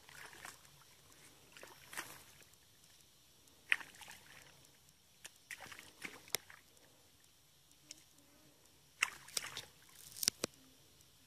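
Irregular splashes and wet sloshing in shallow muddy water as a long-handled tool digs and scrapes at a mud bank, loudest in a cluster of strokes near the end.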